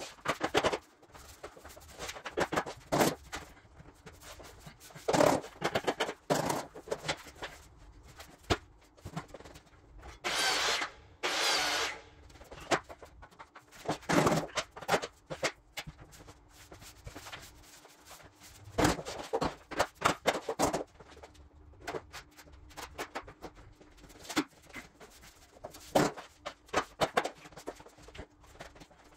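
Work sounds of a luxury vinyl plank floor being installed by hand: scattered knocks, taps and clicks as planks are handled and fitted together on the floor, with two longer scraping noises about ten to twelve seconds in. A faint steady hum lies under it.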